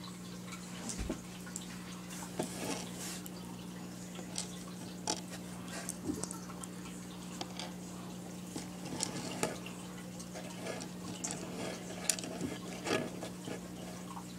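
Lego plastic pieces clicking and tapping irregularly as they are handled, over a steady low electrical hum.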